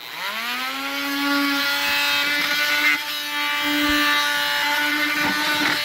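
Electric power drill running under the trigger: it spins up quickly, runs at a steady speed for about six seconds, then winds down when released.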